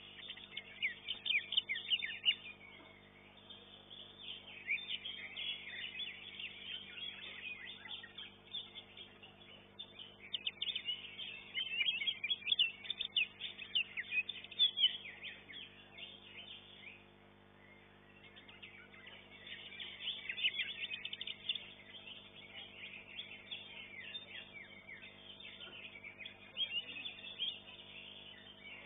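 Greater green leafbird (cucak hijau) singing in spells of rapid chirps and trills, several seconds each with short pauses between, over a steady low electrical hum.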